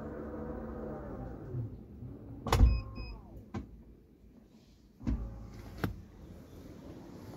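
Toyota Fortuner power back door motor running with a steady whine, then slowing and dying away as the tailgate comes down. It shuts with a loud thump about two and a half seconds in, followed by two short high beeps, and two more knocks come about five seconds in.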